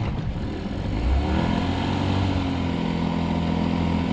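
Boat outboard motor running, picking up speed about a second in, then holding a steady pitch under way.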